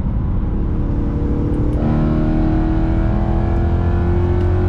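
BMW E92 M3's 4.0-litre S65 V8 through a Cen-Cal titanium catback exhaust, accelerating with its pitch rising steadily.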